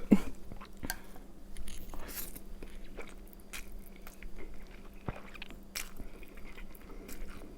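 A person chewing and biting food, with soft wet mouth clicks and a few small crunches scattered through.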